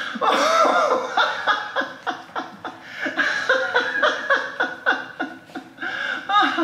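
A person laughing in a long run of short chuckles and snickers.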